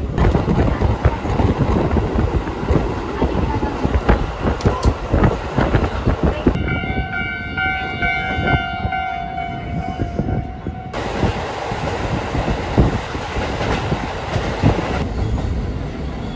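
Train running on its rails, wheels clattering, heard by an open window. About six seconds in, a railway level-crossing warning signal rings steadily for about four seconds as the train passes the crossing.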